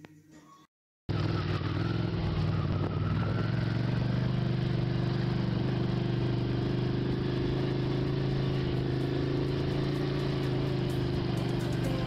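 Motorcycle engine running at a steady speed under way, cutting in suddenly about a second in after a brief silence.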